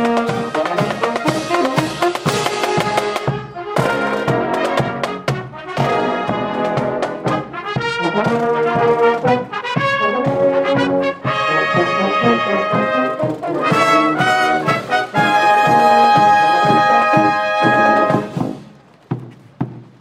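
High school marching band playing a brass march over a steady beat. About eighteen and a half seconds in it ends on a long held chord and cuts off, leaving soft regular taps.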